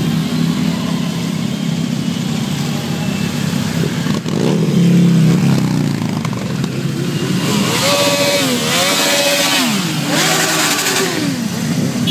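A column of motorcycles riding slowly past, many engines running together. About two-thirds of the way through, engines are revved up and down several times.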